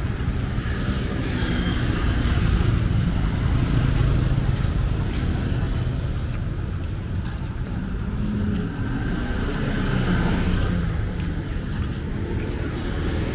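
Street traffic: vehicle engines running and passing in a steady rumble that swells twice as vehicles go by.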